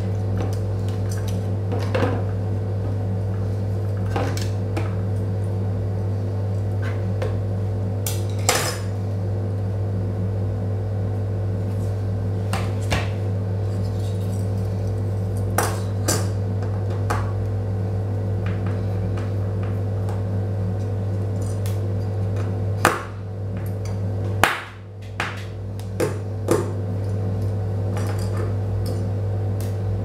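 Scattered small metallic clicks and taps from a laptop's copper heatsink-and-fan assembly being handled and a small screwdriver working the fan's screws. A steady low hum runs underneath and drops out briefly about three-quarters of the way through.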